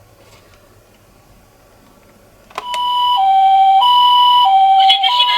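Toy ambulance's electronic two-tone siren switching on about halfway through, alternating a higher and a lower tone, each held about two-thirds of a second: the Japanese 'pee-po' ambulance pattern.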